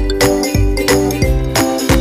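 Background music with a steady beat, pitched over a bass line.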